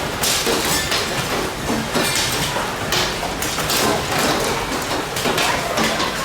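Hail pelting down: a dense, irregular clatter of many small impacts over steady noise.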